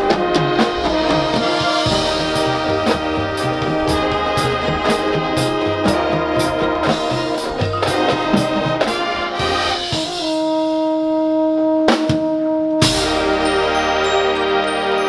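Marching band playing: the brass section holds sustained chords over steady, evenly spaced drum hits. Near the end the beat drops out under a single held note, two sharp percussion hits land, and the full band comes back in on a big chord.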